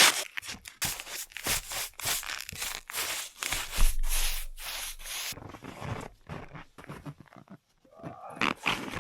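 Broom sweeping snow off roof tiles in quick repeated brushing strokes that stop about five seconds in, followed by fainter scuffs and scrapes.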